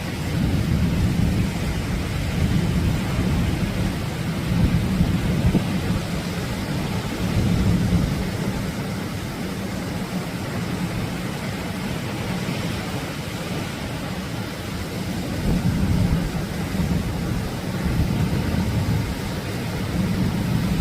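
Atlantic surf breaking on a beach: a steady, deep rumbling wash of waves that rises in louder surges every few seconds.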